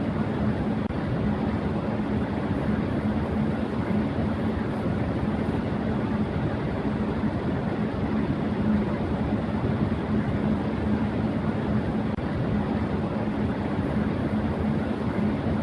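Electric fan running at high speed: a steady airy whoosh with a low, steady hum underneath.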